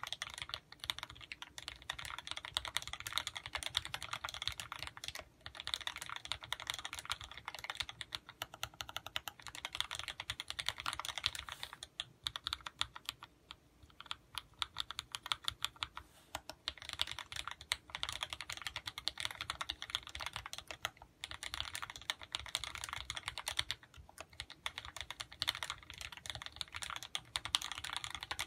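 Fast typing on a custom mechanical keyboard fitted with vintage Cherry MX Black linear switches (65 g): a dense run of clacking keystrokes in bursts, with brief pauses and a sparser, lighter stretch about halfway through.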